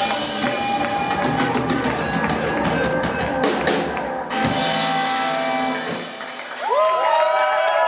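A live rock band plays an instrumental passage: electric guitars, bass and drum kit with frequent cymbal and drum hits. About six seconds in the playing thins out for a moment, then several notes slide upward and ring on loudly to the end.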